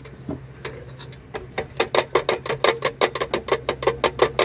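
Ratchet wrench clicking rapidly and evenly, about six or seven clicks a second and growing louder, as a bolt is worked on the gearbox during a clutch job. A steady low hum runs underneath.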